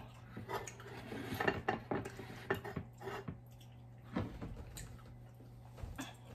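Light clicks and taps of dishes being handled: a plate and a glass bowl knocking against each other and the counter, scattered and irregular, mostly in the first three seconds.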